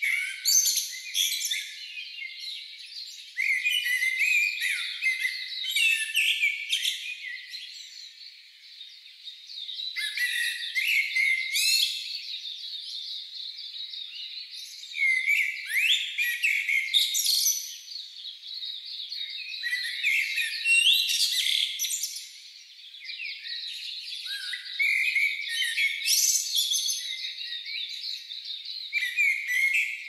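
Several songbirds singing and chirping, with overlapping songs of quick chirps, trills and pitch sweeps that come in phrases of a few seconds with short lulls between them.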